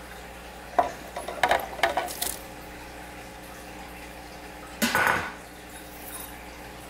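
Spoon and bowl clinking and scraping against a plastic Ninja blender jar as crumbly cheese curd is scooped in. Several light clicks and scrapes come in the first two seconds, then a louder clatter about five seconds in.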